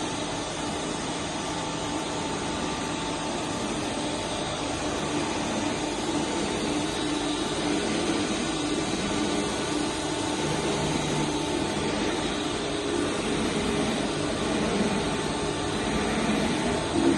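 Surface grinder running: a steady machine whir and hiss from the grinding-wheel spindle and machine drives, swelling slightly in level near the end.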